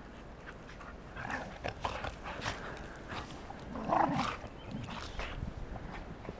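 Two dogs play-wrestling in snow, with short, irregular dog vocal noises starting about a second in; the loudest comes about four seconds in.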